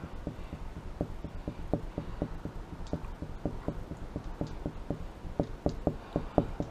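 A run of light clicks, about three or four a second, somewhat uneven: a HeroClix figure's plastic combat dial being clicked round.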